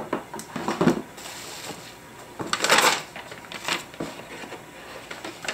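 Hands rummaging in a cardboard box with a moulded pulp packaging insert: a few light knocks and scrapes, then a louder crinkling rustle about two and a half seconds in.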